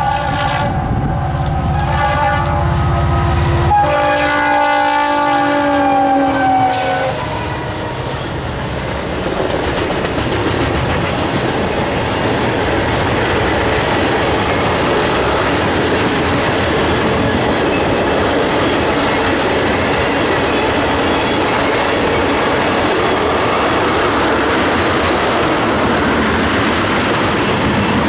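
Leslie air horn on a Norfolk Southern SD60I diesel locomotive sounding a long chord over the low rumble of the locomotives. The chord drops in pitch about four seconds in and stops about seven seconds in. After that comes the steady rumble and clickety-clack of a long string of ethanol tank cars rolling past.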